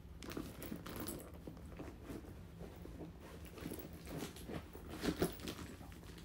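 A handbag being handled and slipped into its cloth dust bag: irregular rustling of fabric with light taps and clicks. The loudest sound is a short pair of knocks about five seconds in.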